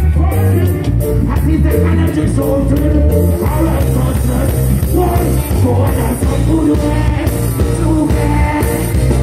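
Live reggae band playing through a concert sound system, with a heavy bass line, and a male singer's voice over it.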